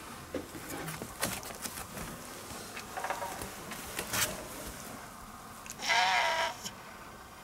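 Brown tabby stray cat giving a strained, squeezed-out meow about six seconds in, with a shorter, fainter call about three seconds in. A few light clicks are also heard.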